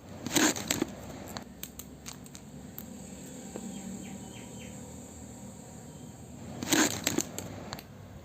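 Hands handling small toy pieces and their packaging: two brief loud crinkling rustles, one about half a second in and one near the end, with scattered light clicks and taps in between.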